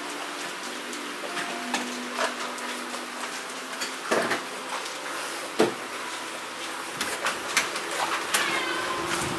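Scattered clicks and light knocks of dogs' claws and paws moving on a metal checker-plate floor, over a faint steady hum. A short high falling squeal comes near the end.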